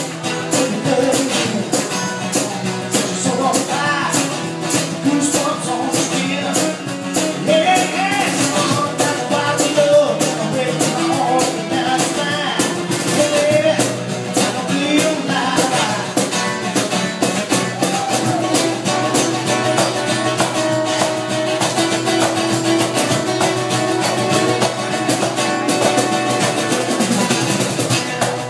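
Live acoustic band music: a steel-string acoustic guitar strummed and picked over a steady beat played by hand on a cajón.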